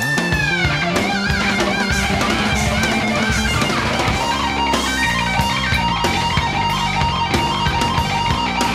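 Heavy rock instrumental music: electric lead guitar with bent notes over bass and drums, the lead holding one long note through the second half.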